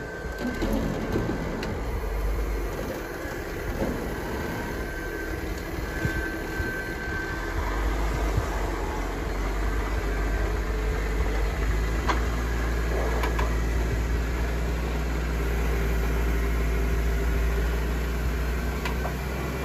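Lifted Jeep Wrangler Rubicon's engine running at low revs under load as it crawls up a steep rock slot, a steady low drone that grows a little louder partway through.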